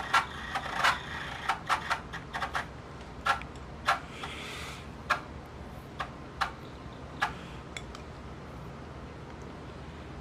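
Pioneer CT-W840R cassette deck's right-hand tape transport struggling as it plays a tape, with irregular clicks and knocks that come thick for about eight seconds and then thin out, and a short hiss about four seconds in. The tape is good, so the struggling points to a fault in the deck's right-side mechanism.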